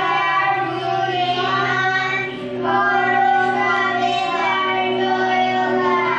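A group of children singing a Bengali song together in long held notes, over a steady instrumental drone. A new phrase starts about two and a half seconds in.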